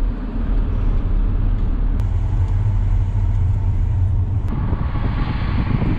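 Road noise of a moving car heard inside its cabin: a steady low rumble from the engine and tyres. A rushing hiss joins it about three-quarters of the way through.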